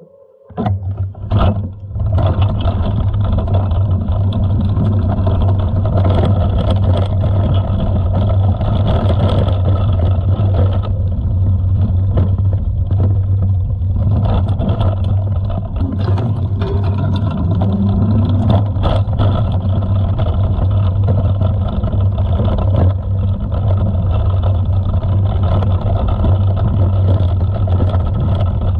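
Wind buffeting a helmet- or chest-mounted GoPro's microphone while a mountain bike is ridden over cobbles and dirt, with a steady low rumble of tyres and the bike, and occasional knocks as it hits bumps. It starts after a brief lull about two seconds in.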